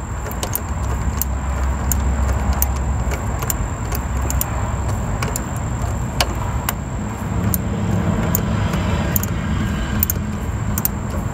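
Light metallic clicks and clinks of a small 1/4-inch ratchet and socket working a starter mounting bolt, coming a few at a time at irregular spacing, over a low steady rumble.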